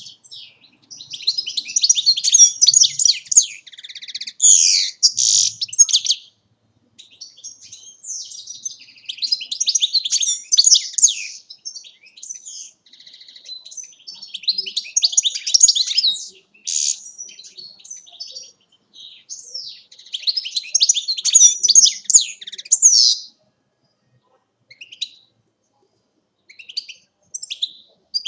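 A European goldfinch singing: rapid, high twittering song in four long phrases of several seconds each, separated by short pauses, then only a few scattered single notes near the end.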